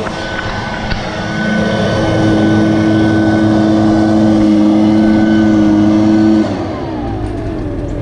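Gas backpack leaf blower running at full throttle. It grows louder about a second in and holds a steady pitch, then the throttle is let off after about six seconds and the engine winds down, its pitch falling.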